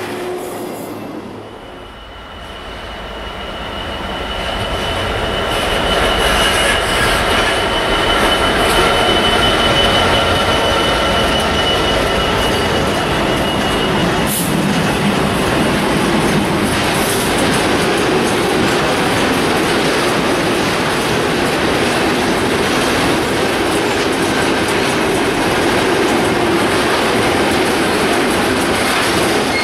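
Freight train of flat wagons loaded with vans approaching and rolling past, growing louder over the first few seconds. A steady high wheel squeal lasts until about halfway, then the wagons rumble and clatter past.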